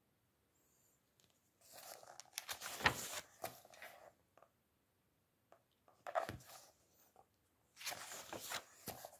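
Paper pages of a book being turned and handled, rustling in three bursts: a longer one about two seconds in, a short one around six seconds, and another near the end.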